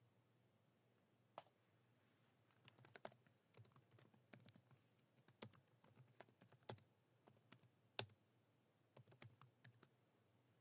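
Faint typing on a computer keyboard: irregular keystroke clicks, one alone about a second in, then a run of typing that stops shortly before the end.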